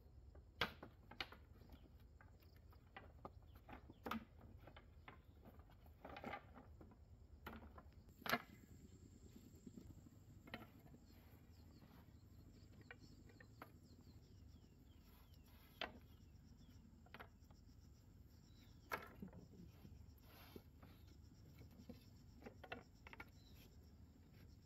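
Wooden poles knocking and clattering against each other as they are lifted and stacked by hand: scattered light knocks, with a few sharper ones, the loudest about eight seconds in.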